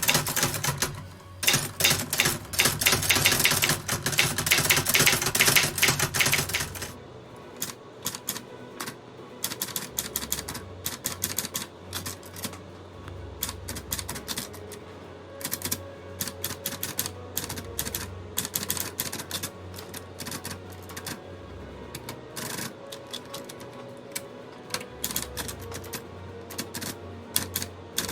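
Typewriter keys being struck in quick runs of clacks, dense and loud for about the first seven seconds, then sparser and quieter keystrokes, with background music underneath.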